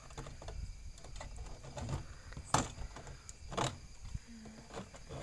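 Scattered clicks and knocks, the two loudest midway, from a wire twist-fastening being undone and the metal-edged door of a pigeon loft being handled as it is opened.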